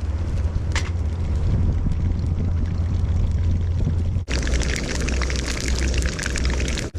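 Chicken leg steak frying in hot oil, sizzling and crackling, over a steady low rumble. The crackling is thickest after about four seconds in.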